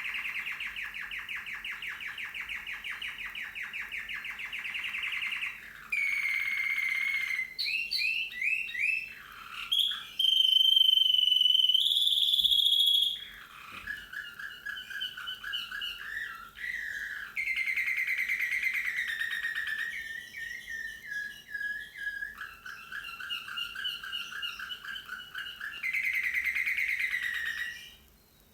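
Slavujar song canary singing a long run of rapid trills and rolls, switching to a new phrase every few seconds, with its loudest part a high, held note about ten seconds in. The song stops just before the end.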